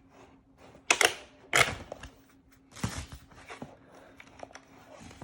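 Keys on a Corsair K95 RGB Platinum mechanical keyboard pressed one at a time, giving separate sharp clicks. The loudest two come about a second in, another near three seconds, and a few lighter clicks follow.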